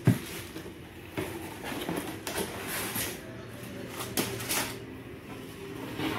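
Cardboard box and plastic wrap being handled as a plastic-wrapped blender goblet is lifted out. There is rustling with a few knocks, the sharpest right at the start.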